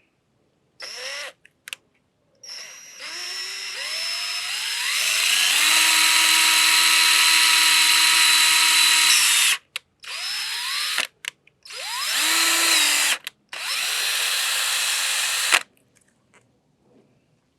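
Power drill run in about five trigger pulls while drilling out a broken bolt on a two-stroke outboard. Each time, the motor whine rises in pitch as it spins up. The longest run lasts about seven seconds and settles to a steady whine; the others are short bursts of one to two seconds.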